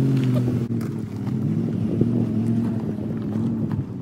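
Lexus GX SUV's V8 engine pulling steadily at low speed on a rocky dirt trail, loudest at the start as it passes close by. Tyres crunch over dirt and loose stones, with scattered small clicks.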